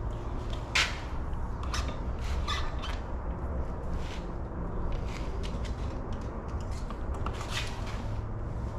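Scattered short clicks, knocks and scrapes of metal parts and tools being handled at a workbench, over a steady low hum.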